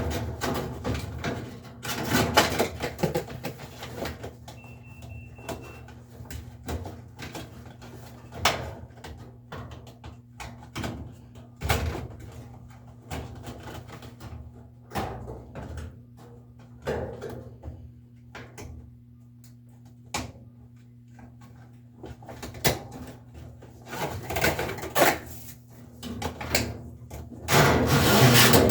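Irregular knocks, clicks and scrapes of parts and tools being handled on a top-load washing machine, over a steady low hum. A short high tone sounds about five seconds in.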